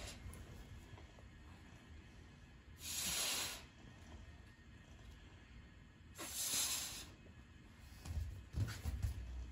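Close, soft breathing: two hissy breaths about three seconds apart, then a few low bumps near the end.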